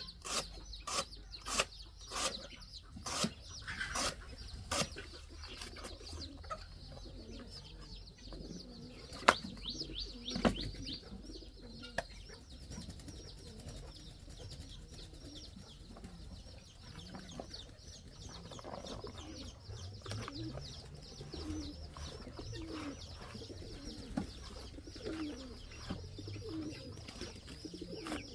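Pigeons or doves cooing over and over in the second half. In the first few seconds comes a run of sharp knocks, about one or two a second, over a steady high hiss.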